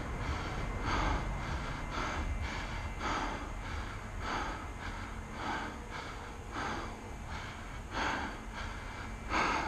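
A person breathing hard and fast close to the microphone, about one to two breaths a second, with a louder breath near the end; a low wind rumble underneath.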